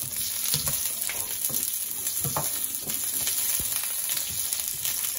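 Garlic, whole red chillies, bay leaves and green chillies sizzling in a little hot oil in a nonstick frying pan, with a spatula scraping the pan in short irregular strokes as they are stirred. This is the tempering (baghar) stage, the aromatics being sautéed.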